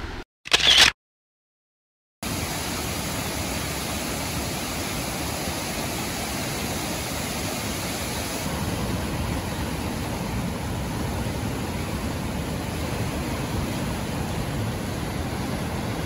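Steady rushing water from a small waterfall and the flooded stream below it, an even hiss that runs without a break. Near the start there is a brief loud burst, then about a second of dead silence before the water noise sets in.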